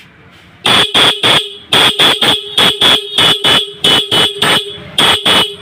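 A scooter's newly fitted pair of electric disc horns being sounded together in short repeated beeps, in quick groups of about three, starting about a second in. The horns are being tested after installation to check that both sound loud.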